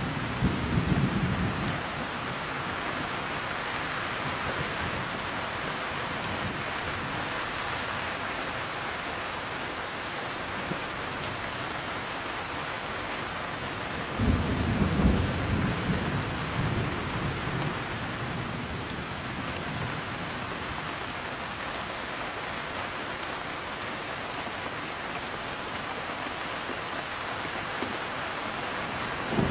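Heavy steady rain with thunder rumbling: a low rumble fading out about two seconds in, another swelling about halfway through and dying away over a few seconds, and a third starting right at the end.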